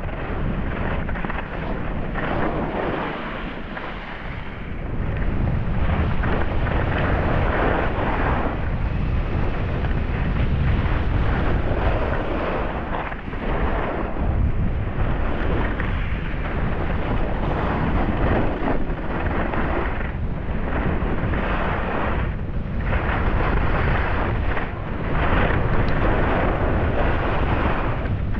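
Wind buffeting the microphone with a deep rumble during a fast descent of a groomed ski run, over the hiss of edges scraping the snow that swells and fades every couple of seconds with each turn.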